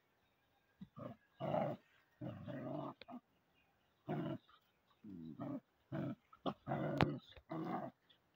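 Several young dogs play-fighting, growling in about a dozen short bursts. A sharp snap sounds about seven seconds in.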